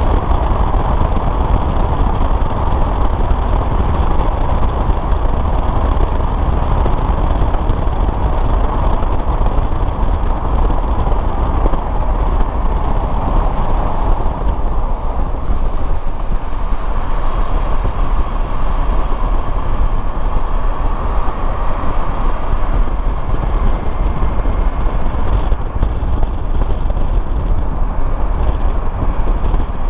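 Steady road and engine noise of a new-model Suzuki Jimny driving along, an even rumble with no distinct events.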